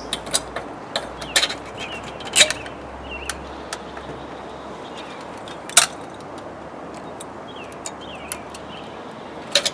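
Scattered metallic clicks and knocks of hand tools and engine parts as a small engine's carburetor assembly, stuck on by its gasket, is worked loose; the sharpest knocks come about two and a half and six seconds in and again near the end.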